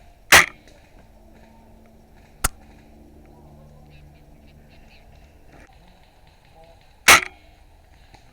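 Two sharp shots from a Novritsch SSG24 bolt-action spring airsoft sniper rifle, one just after the start and one about seven seconds later, with a single short click in between.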